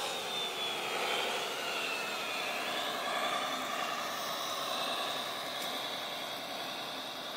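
Several radio-controlled scale trucks' electric motors and gearboxes whining together, their pitches drifting up and down as they drive.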